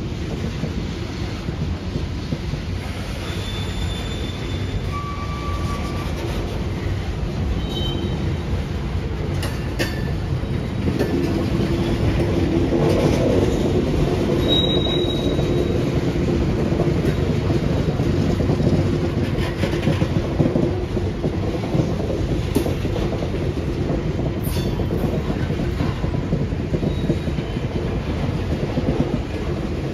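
Freight train moving through a rail yard: a steady rumble of rolling cars that grows a little louder about midway, with short high-pitched wheel squeals now and then.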